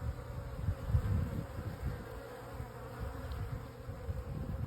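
Steady buzzing hum of honeybees and wasps crowding a beehive entrance, the wasps trying to force their way in past the defending honeybees.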